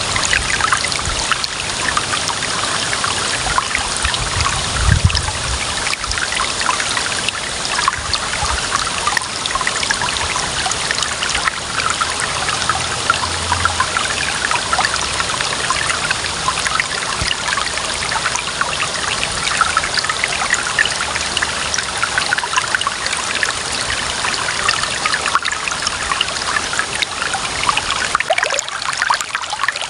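Clear running water trickling and splashing steadily, with a brief low thump about five seconds in.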